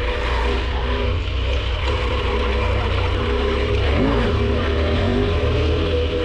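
KTM 1190 Adventure R's V-twin engine running while under way, holding steady revs; about four seconds in the revs briefly dip and climb again.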